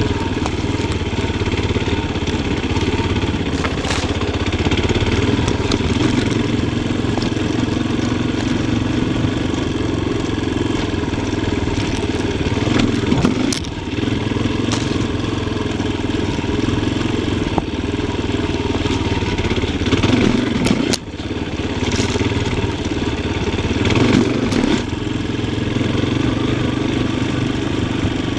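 Yamaha Tricker XG250's single-cylinder four-stroke engine running at low to moderate revs, the throttle opened and shut several times, with a few sharp knocks and clatter from the bike riding over logs.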